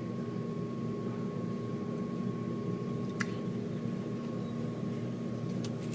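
Steady background hum with a few fixed tones, and a single faint click about three seconds in.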